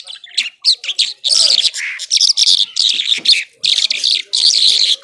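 Irani Mashadi jhal, a lark, singing a fast, high-pitched stream of chirps and trills in loud runs broken by short pauses.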